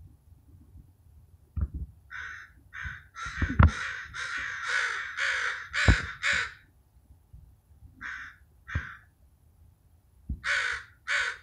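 Crows cawing harshly in agitation at a raccoon in the tree: a fast run of caws for about four seconds, then a pair, then another pair near the end. A few low thumps are mixed in.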